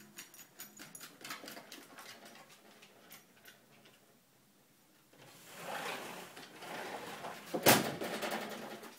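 A dog's claws scratching and scrabbling as it climbs a fence: quick small clicks at first, a short pause, then louder scraping and rustling with one sharp knock about three-quarters of the way through.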